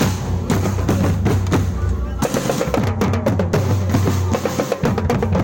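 Loud music driven by drums, with rapid snare-like strokes and rolls over a heavy, steady bass.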